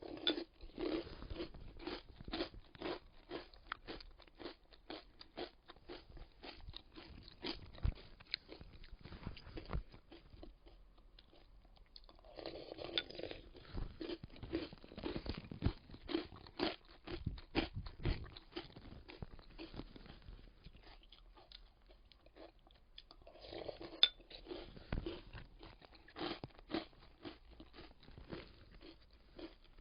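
Close-up chewing of crunchy choco-almond granola cereal, a dense run of sharp crackling crunches. The crunching comes in three bouts, each starting louder: at the start, about 12 seconds in and about 23 seconds in.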